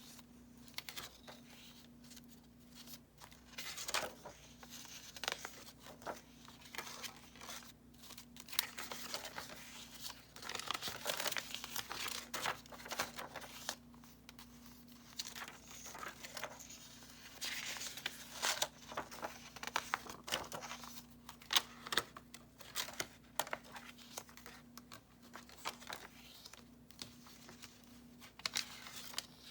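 Pages of a handmade junk journal being turned and handled, irregular papery rustling and crinkling with crisp flicks now and then. The journal is mixed papers, old book pages and coffee-dyed paper.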